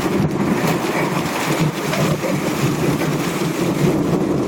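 Hail and heavy rain pelting down in a steady loud rush of many small hits, with thunder rumbling low beneath it.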